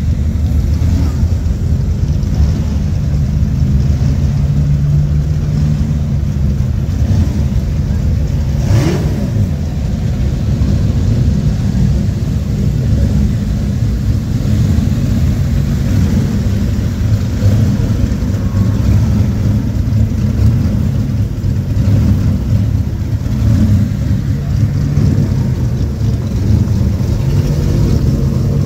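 Engines of several vintage pre-war racing cars running at idle together: a steady low rumble.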